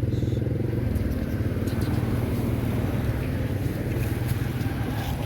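A motor vehicle engine running steadily, a low hum that eases off a little about a second in.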